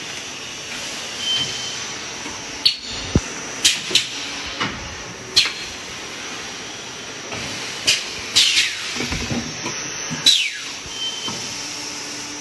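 Extrusion blow molding machine running: a steady hiss, with repeated sharp mechanical clacks and short hissing blasts of air at irregular intervals as the molds cycle.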